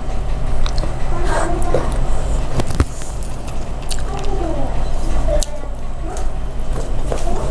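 Close-miked wet chewing and mouth sounds of a person eating khichdi, with scattered sharp clicks, over a steady low hum.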